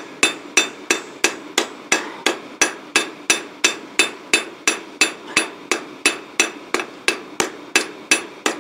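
Ball-pein hammer beating a small piece of hot steel, held in pliers, on a rusty steel block used as an anvil: an even rhythm of about three blows a second, each with a short metallic ring.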